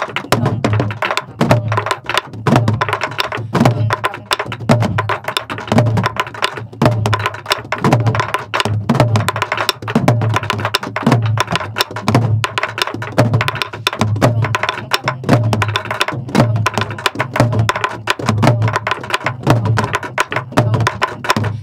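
Several sori-buk, Korean pansori barrel drums, played together in a steady rhythm: deep hand strokes on the drumheads mixed with dense, sharp stick clacks on the wooden shells.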